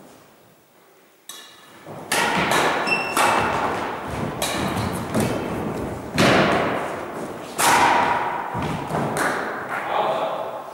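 Badminton rally: racket strings striking the shuttlecock with sharp hits about once a second, each echoing in a large gymnasium, mixed with footfalls on a wooden floor.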